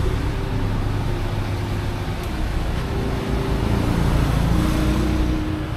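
City street traffic: motor vehicles running past on the road, a steady low rumble with a wavering engine hum.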